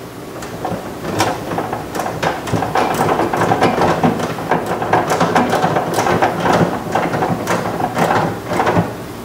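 Ratchet with a 10mm socket clicking in repeated strokes while tightening a door-handle mounting bolt.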